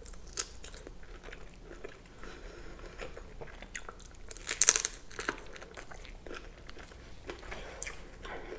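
Close-miked eating sounds: wet chewing and biting of saucy boiled prawns, with scattered small mouth clicks and a burst of loud crunchy bites about halfway through.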